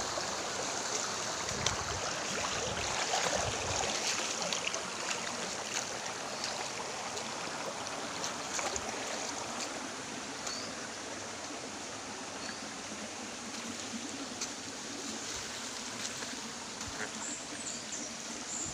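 Shallow rocky creek running over stones and gravel: a steady rush of water, with a few low thumps in the first few seconds.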